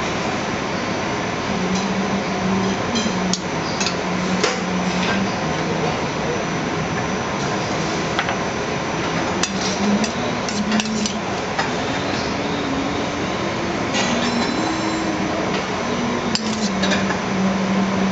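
A metal spoon clinking and scraping against a stainless steel bowl and a ceramic plate in scattered clicks, over steady kitchen background noise and a low hum that steps up and down in pitch.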